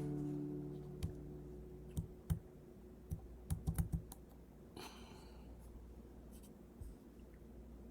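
The last of a strummed acoustic guitar chord fading out, followed by a scattered series of small clicks and knocks, several close together about three and a half seconds in, and a brief soft rustle.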